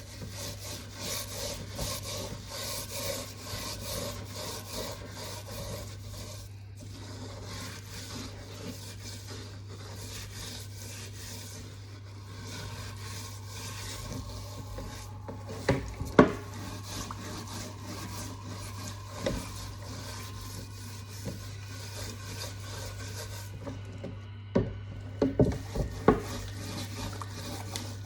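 Kitchen food preparation: a run of rapid rasping, scraping strokes for the first several seconds, then softer scraping, broken by a few sharp knocks, the loudest about sixteen seconds in and a cluster near the end, over a steady low hum.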